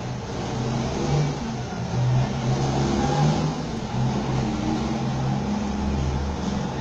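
Semi-truck's diesel engine running as the truck pulls past, its low engine note growing louder about a second in and then holding steady.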